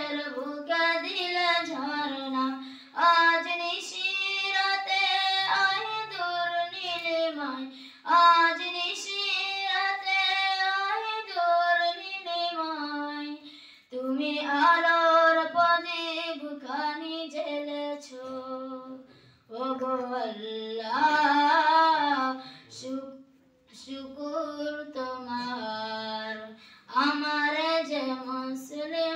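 A boy singing a Bangla gajal (Islamic devotional song) solo without accompaniment, in long held melodic phrases broken by short pauses for breath.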